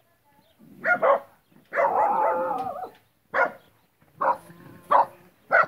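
A dog barking: sharp barks starting about a second in, one longer drawn-out bark, then several short single barks.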